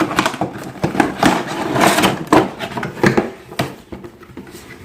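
A cardboard box being opened and its packing handled: irregular rustles, scrapes and knocks of cardboard and paper, tailing off near the end.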